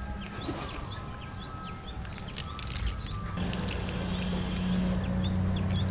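Birds chirping in short, repeated calls over a steady low hum that grows louder about halfway through.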